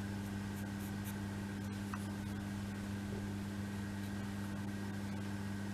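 Steady low electrical hum over a constant hiss, with a faint click about two seconds in.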